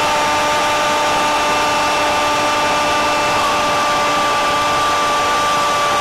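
A Brazilian football commentator's long, unbroken "Gooool!" shout for a goal, held at one steady pitch without a breath over constant stadium crowd noise.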